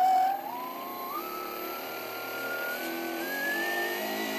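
Small electric outboard motor of an RC boat spinning up sharply and whining, its pitch climbing in steps as the throttle opens. It drives a tiny half-pitch 3D-printed propeller that gives no discernible thrust.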